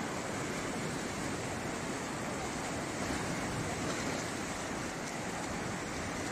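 Swollen, muddy floodwater of a river surging and breaking in turbulent waves along the bank: a steady rush of water.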